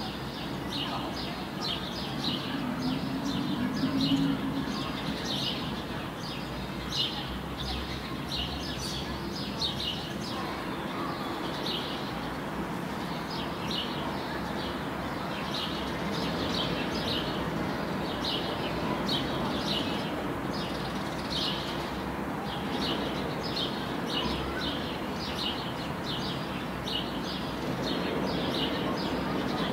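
A bird chirping over and over, short high calls about one or two a second, over steady low background noise.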